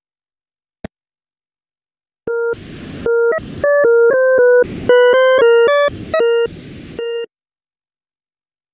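Desmos graphing calculator's audio trace sonifying the step graph of lcm(x, cbrt(x), sin x): a single click about a second in, then, from about two seconds in, a buzzy synthesized tone that jumps abruptly between a few fixed pitches, broken by short bursts of hiss, cutting off about two seconds before the end.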